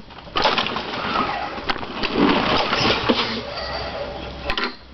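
Toro walk-behind mower being pull-started, the recoil cord pulled and the engine turning over without catching. The owner suspects the engine is flooded.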